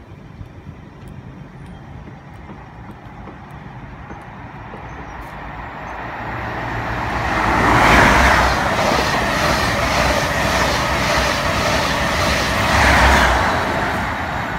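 A First Great Western High Speed Train (InterCity 125) passing through at speed. It builds up over several seconds to a loud peak as the leading Class 43 diesel power car goes by. Then comes an even clatter of the coaches' wheels, a second peak as the rear power car passes, and the sound fades as the train moves away.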